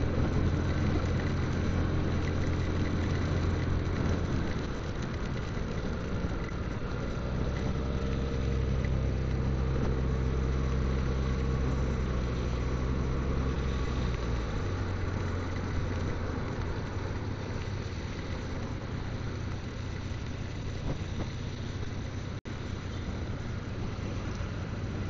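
Motorcycle engine running under way in rain, with a steady hiss of rain over it. The engine note changes about four seconds in and again a little past halfway.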